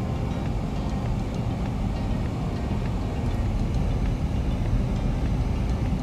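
Car driving slowly in traffic, heard from inside the cabin: a steady low rumble of engine and road noise.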